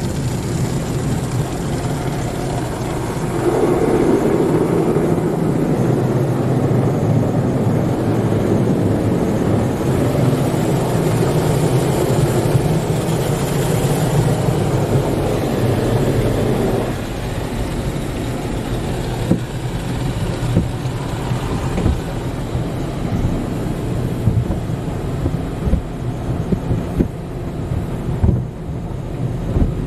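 Tunnel car wash heard from inside the car's cabin: a steady rush of water and foam spraying over the body and windshield above a low hum, loudest through the first half. In the second half cloth wash brushes slap against the car in scattered soft thumps.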